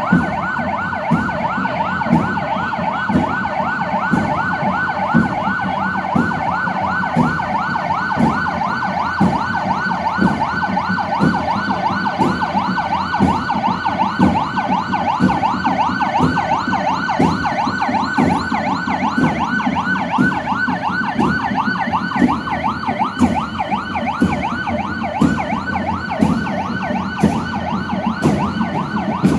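Police sirens on a slow-moving convoy sounding a fast yelp, several rising-and-falling sweeps a second, over the hum of engines. Regular thumps about once a second run beneath it: a marching band's drums.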